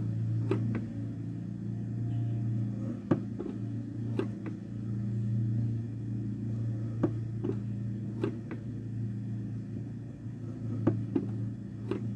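A steady low hum, with pairs of light knocks about a second apart repeating every few seconds.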